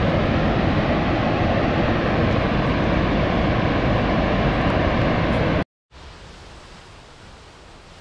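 Large waterfall pouring into its plunge pool: a loud, steady rush of falling water. It cuts off abruptly about two-thirds of the way through and, after a split-second gap, gives way to a much quieter, duller rush of water.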